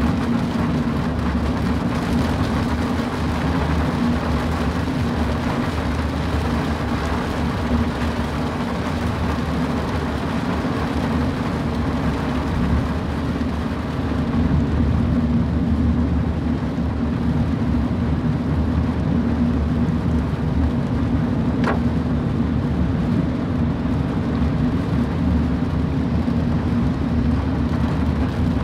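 Car driving in the rain: steady road noise and wet-tyre hiss with rain, over a low drone. A single short click comes about three-quarters of the way through.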